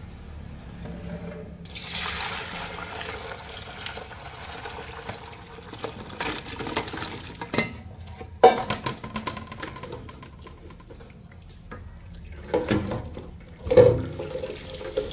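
Boiled chicken feet and their hot cooking water poured into a perforated metal colander over a bowl: a rush of splashing water for a few seconds, then draining, with sharp metal clanks of pot and colander later on.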